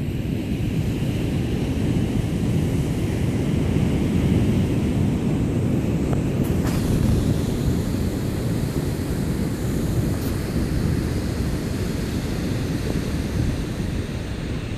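Wind blowing on the microphone, a steady low rushing noise that buffets the sound, with ocean surf on a sandy beach mixed in.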